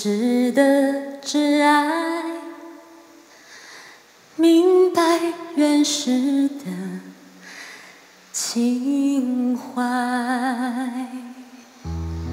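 A woman singing a slow Mandarin ballad unaccompanied, holding long notes with vibrato between short pauses. Just before the end, instrumental accompaniment comes in underneath with low bass notes.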